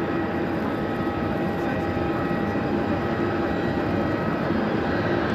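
Jet engines of a Boeing 747-400 on its landing roll just after touchdown: a steady rush of engine noise with a few thin whining tones, getting slightly louder near the end.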